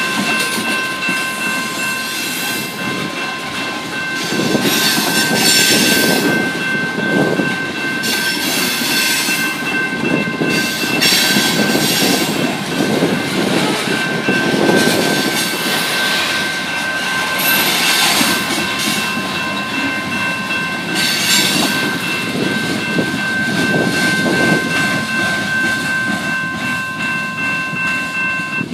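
Canadian Pacific freight train of tank cars and covered hoppers rolling past, its wheels clattering and rumbling on the rail with recurring louder surges. A level-crossing warning bell rings steadily over it and stops at the end as the last car clears the crossing.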